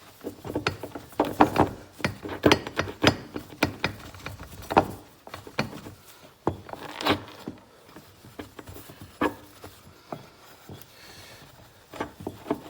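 Irregular knocks, clicks and rubbing as a polished aluminium part is handled and wiped down with a rag on a workbench, with the sharpest knocks in the first half.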